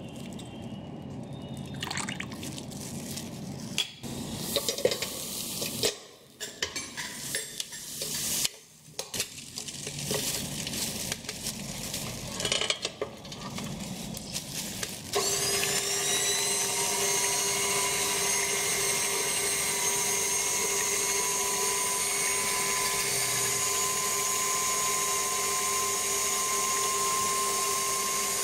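Ingredients being poured and splashed into a stainless steel mixing bowl, with irregular clinks of metal utensils. About halfway through, an electric stand mixer starts and runs at a steady speed with a constant high motor whine.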